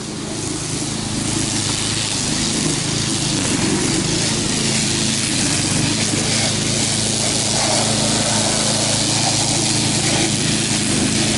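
Small gas engine of a walk-behind brush mower running steadily under load as it cuts tall grass, growing louder over the first few seconds.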